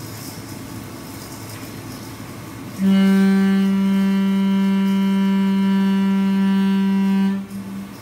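Large linear vibration plastic welder running a weld cycle. Its vibrating head gives a loud, steady buzz at about 200 Hz with many overtones that starts about three seconds in and cuts off sharply after about four and a half seconds. A low machine hum sounds under it throughout.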